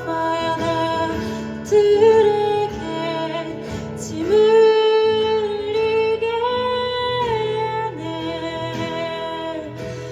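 A woman singing long held notes with acoustic guitar accompaniment in a live performance; about four seconds in her voice slides up into a louder, held note.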